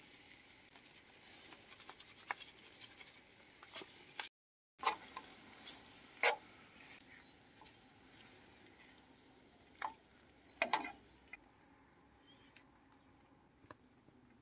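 A metal spoon clinking and scraping against a frying pan as pasta is stirred and served, in scattered short taps over a faint steady hiss. The sound cuts out completely for a moment a little over four seconds in.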